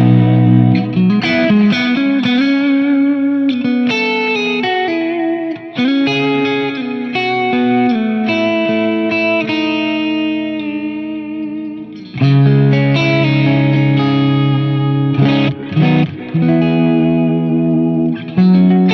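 Electric guitar played through a Line 6 Helix running a captured 1966 Vox AC30 amp on a clean setting: single notes and chords ringing out, with a hard strummed chord about twelve seconds in.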